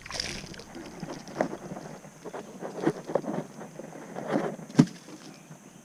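Scattered knocks and thumps in a fishing boat while a hooked bass is brought in, irregular and spaced out, the loudest a sharp thump about five seconds in, with a brief hiss at the start.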